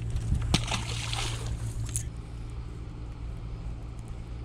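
Steady low wind rumble on the microphone. About half a second in, a short splash as a released bass hits the water, followed by a second or so of rushing noise.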